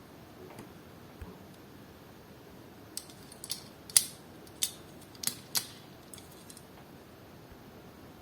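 Sharp clicks and snips from opening a diecast toy car's plastic packaging: about seven between three and six seconds in, the loudest about four seconds in.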